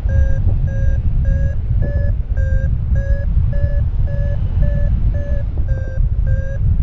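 Paragliding variometer beeping in a steady rhythm of short two-tone beeps, about two and a half a second, the climb tone that signals the glider is rising in lift. Heavy wind rumble on the microphone underneath from the airflow in flight.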